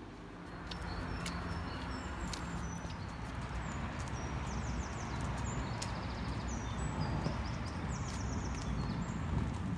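Small birds chirping: many short, high calls and quick twittering runs. Beneath them is a steady low street rumble, with a few sharp clicks.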